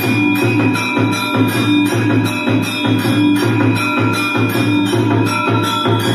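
Rhythmic instrumental aarti music: a fast, even drum beat with jingling bells or tambourine and a few held ringing tones.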